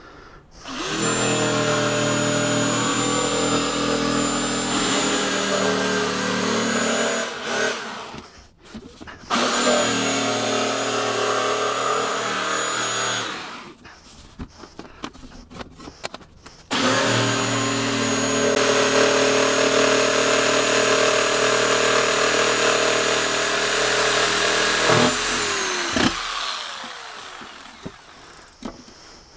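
Corded electric jigsaw cutting through a plywood sheet in three runs of several seconds, with short pauses between them. Near the end the motor winds down in pitch as it stops.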